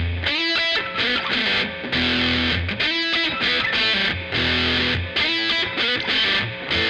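Squier VM Jazz played through a Killer Otter Electric Party Animal fuzz pedal into an AC30 amp simulation: a distorted riff of fuzzed notes, broken by short gaps.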